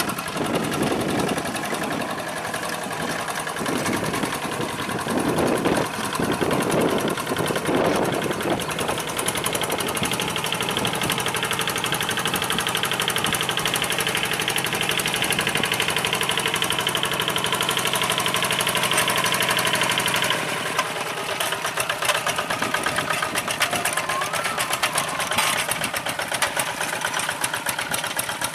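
Two-wheel hand tractor's single-cylinder diesel engine running with a fast, even chugging while it works under load through the mud, its pull heavier and more uneven for the first several seconds.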